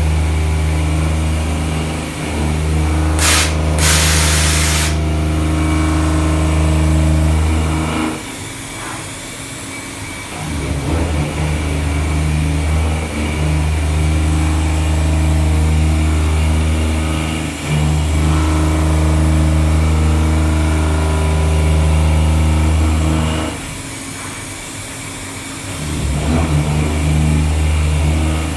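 CNC milling machine running a pocket-milling cycle: a steady low machine hum that eases off twice for a couple of seconds, about eight and twenty-three seconds in. Two short hissing bursts sound about three seconds in.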